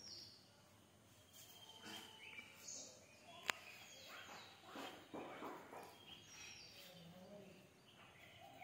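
Faint outdoor ambience with birds chirping now and then, a single sharp click about three and a half seconds in, and a few brief rustles.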